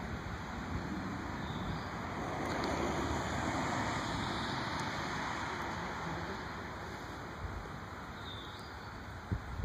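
Gusty wind rumbling on the microphone and rustling the trees, swelling about three seconds in and easing off later. Short high chirps sound twice, faintly.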